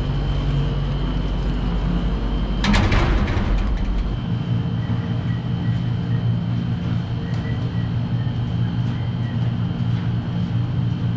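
Steady mechanical hum with a faint high-pitched whine above it. A short noisy clatter comes about three seconds in, and about a second later the hum shifts to a different, steadier drone.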